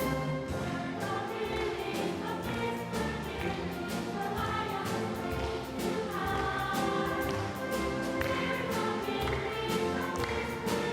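Children's choir singing with an orchestra accompanying, in long held notes.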